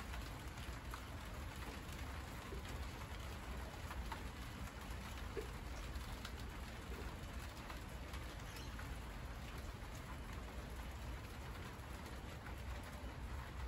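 Rain falling on monstera leaves, a steady patter with scattered drop ticks, while a dove coos briefly about five seconds in.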